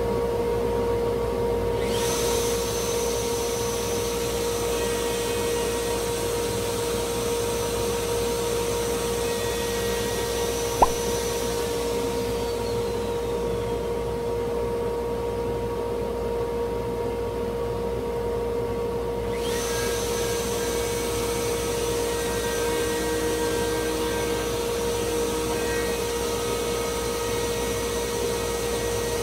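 Router running with a dust extractor, routing a juice groove into a hardwood cutting board: a steady whine throughout, with a brighter hiss of the cut that drops away for several seconds past the middle and then returns. One sharp click about eleven seconds in.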